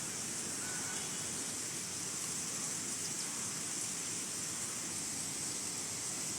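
Steady rushing of a rain-swollen stream, with a constant high-pitched hiss over it.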